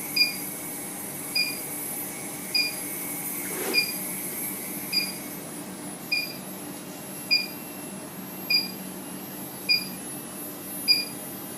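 Induction heating machine running with a steady electrical hum and a high-pitched whine, while a short beep sounds about every 1.2 seconds, ten times in all.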